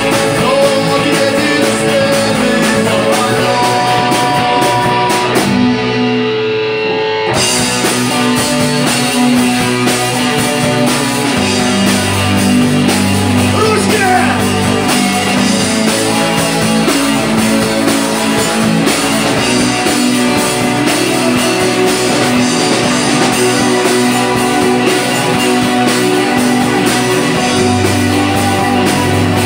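Live rock band playing: electric guitar, keyboard and drum kit, with a singer. About six seconds in, the cymbals and top end drop out briefly, and the full band comes back in just after seven seconds.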